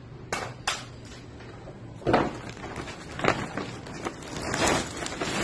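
A few light clicks and knocks of objects being handled, then a plastic bag rustling near the end.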